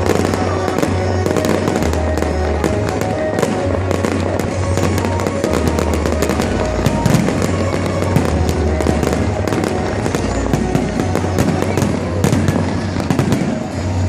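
Fireworks crackling and popping in quick succession over loud music with a steady, stepping bass line.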